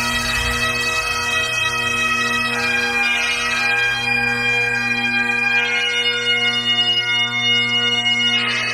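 Bagpipe music: a slow melody played over steady, unbroken drones.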